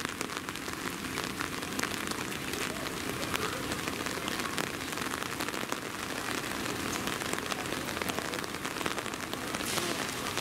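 Steady rain falling, with many sharp individual drop hits close by over an even hiss.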